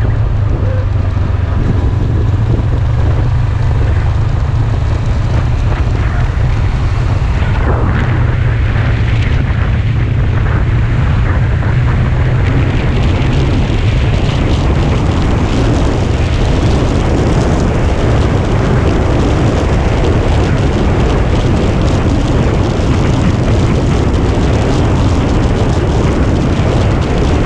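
Wind rushing and buffeting over the helmet-mounted microphone of a moving sport motorcycle, with the bike and its tyres running underneath. The rush turns harsher about halfway through as the bike speeds up.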